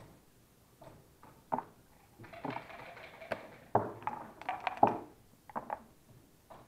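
Backgammon dice rattled in a dice cup, then thrown onto the board, clattering and clicking as they tumble and settle. A few lighter clicks follow.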